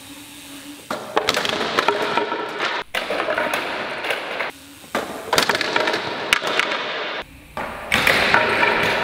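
A trials bike and its rider scraping, sliding and clattering across a hard stage floor in several short bursts that cut off abruptly, with sharp knocks of metal and tyres hitting the boards.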